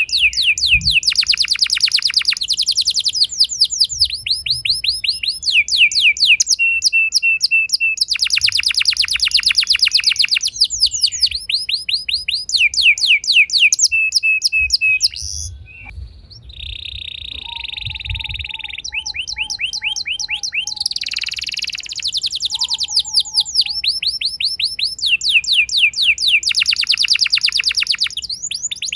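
Canary singing a long song of rolling trills: tour after tour of fast repeated high notes, each held for a second or more before switching to another. About halfway it breaks off briefly, then resumes with a lower, slower run of notes before the fast rolls return.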